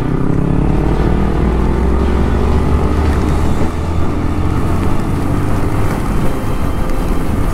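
Motorcycle engine accelerating, its pitch rising over the first few seconds, then running on at steady speed, under heavy wind rush on the rider's microphone.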